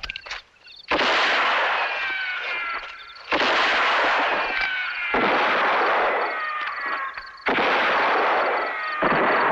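Gunshots with ricochet whines: five sharp shots, each trailing off over a second or two with several falling whistling tones.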